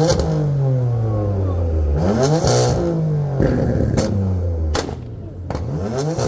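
BMW M4's twin-turbo straight-six revved hard in three quick blips, each climbing sharply and falling away, the last near the end. Sharp exhaust pops crack between the revs.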